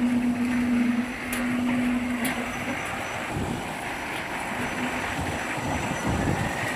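A truck pump running on a boat: a steady hum that drops out a little under three seconds in and comes back near the end, over a constant rushing noise.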